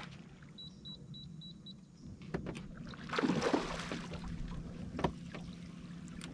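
Water splashing at the boat's side about three seconds in as a landing net is dipped for a hooked redfish, over a steady low hum. A quick run of five short high beeps sounds about a second in, and there are a few light knocks.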